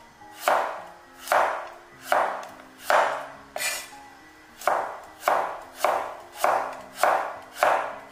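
Chinese cleaver slicing a carrot into thin diamond-shaped slices on a wooden cutting board: a steady run of single knife strokes, each knocking on the board, a little more than one a second. Soft background music plays underneath.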